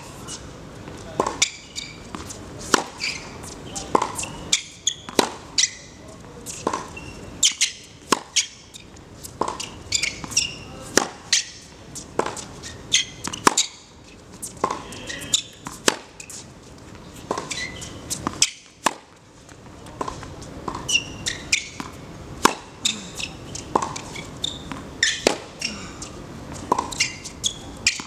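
Tennis ball struck again and again by a racket in a baseline rally, a sharp pop about every second or so, with weaker knocks of the ball bouncing on the hard court in between.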